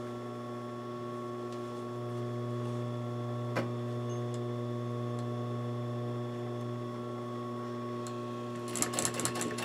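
Steady electrical hum from an industrial sewing machine's running motor, with one light click about three and a half seconds in. Near the end the machine starts stitching, a rapid even clatter.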